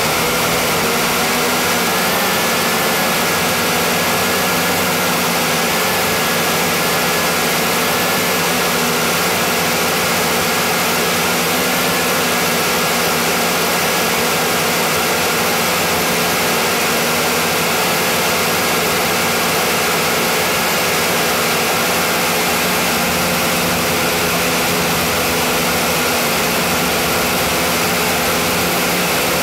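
JJRC H29G quadcopter's four motors and propellers running, heard through the drone's own onboard camera microphone: a loud, steady whine of several held tones over a dense hiss.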